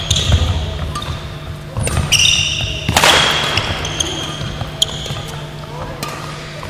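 Badminton rally on a wooden sports-hall floor: shoes squeak shrilly as the players push off and lunge, feet thud, and rackets crack against the shuttlecock, the loudest hit about three seconds in. A steady low hum runs underneath.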